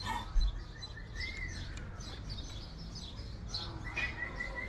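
Swallows twittering, a steady run of short high chirps with a few longer whistled notes. A single dull thump sounds about half a second in.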